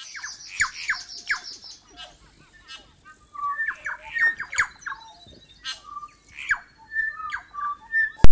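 Birds calling outdoors: many quick, descending chirps and short whistles, with a high rapid trill at the start. A single sharp, loud click comes near the end.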